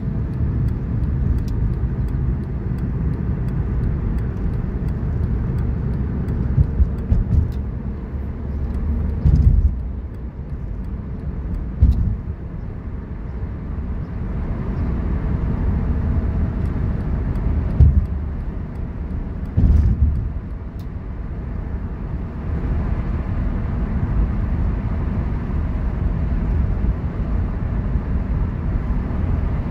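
Steady low rumble of engine and tyre noise heard inside the cabin of a moving car, broken by about half a dozen short thumps.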